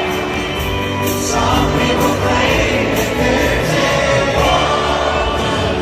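Live concert music from a band with many voices singing, recorded from the audience with a distant, muddy sound.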